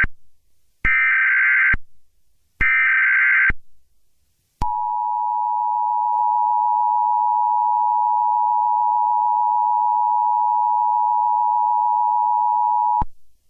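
Emergency Alert System SAME header: three short bursts of warbling digital data tones, the first already under way, each followed by about a second of silence. About a second later a steady alert tone comes in, holds for about eight seconds and cuts off sharply, marking the start of a new warning broadcast.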